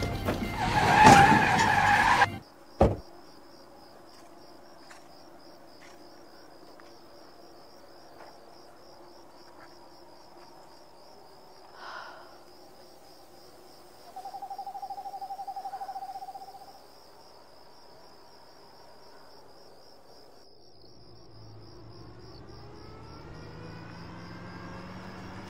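A loud burst of noise in the first two seconds, cut off by a sharp knock. Then a steady, fast-pulsing high insect trill, with a short trilling call about halfway through. A car approaches in the last few seconds, its engine sound building and rising in pitch.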